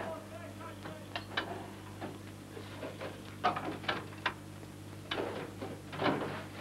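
Scattered clinks and knocks of pots and dishes being handled at a kitchen stove, over a steady low hum.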